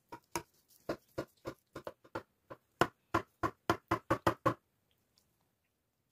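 A knife cutting down through the crisp, browned cheese crust and layers of a baked lasagna: a run of about seventeen short crunches that come louder and closer together in the second half and stop about four and a half seconds in.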